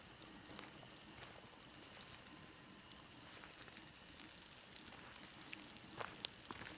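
Northern pike fillets frying in a pan: a faint, steady sizzle with scattered small pops and crackles, a couple of them sharper about six seconds in.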